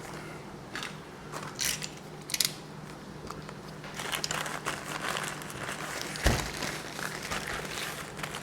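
Product packaging being handled, with crinkling and rustling in short irregular bursts, and a single knock about six seconds in.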